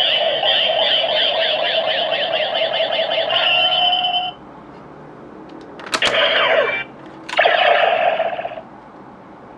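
DX Neo Decadriver toy belt playing electronic sound effects through its small speaker. A warbling standby tune stops about four seconds in. A sharp click comes about six seconds in, followed by two short electronic calls.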